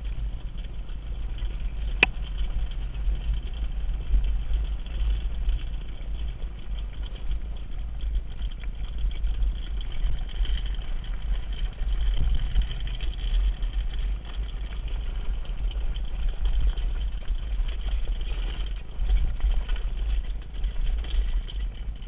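Wind buffeting the camera microphone of a mountain bike speeding down a dirt trail, a steady low rumble with tyre noise from the dirt beneath it. A single sharp click about two seconds in.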